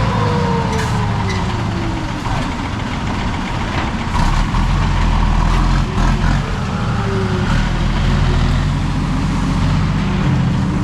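Heavy diesel truck engine running loud, its pitch falling over the first couple of seconds as the revs drop, then dropping again briefly later on.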